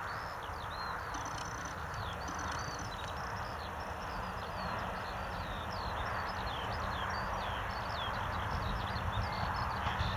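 Birds chirping continuously with many quick calls, over the low rumble of an approaching M41 diesel-hydraulic locomotive that grows slowly louder toward the end.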